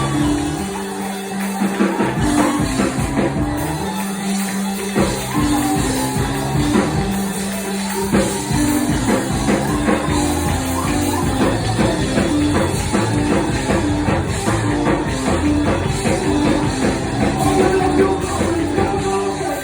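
Loud live praise music from a church band: a driving beat with held bass notes stepping from one pitch to another, and voices singing along.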